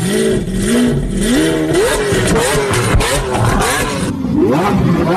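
Lamborghini Aventador V12 engine being revved in repeated blips, its pitch rising and falling with each one; about four seconds in, the sound switches to a second Aventador revving.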